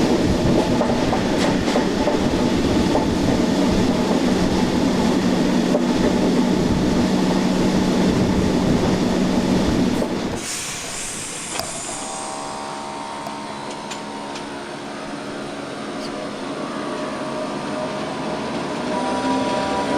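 SNCB AM80 electric multiple unit heard from on board: loud rumbling running noise for about ten seconds, then a sudden drop with a brief high squeal as it comes to rest. Steady humming tones from the stationary train follow, and near the end the traction motors' whine starts rising in pitch as it pulls away.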